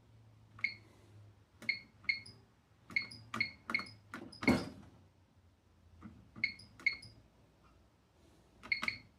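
NX alarm system keypad keys being pressed, each press giving a short high beep: about a dozen in uneven groups, with one louder thump about halfway through. It is the sound of a code being keyed in, here the default installer code to confirm the panel has been defaulted.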